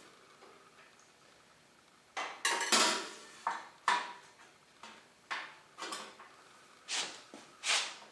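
Steel parts of a welding cart knocking together as a bracket is fitted onto the cart's tubular frame. After about two quiet seconds comes a series of irregular sharp metallic clanks and clinks with a short ring.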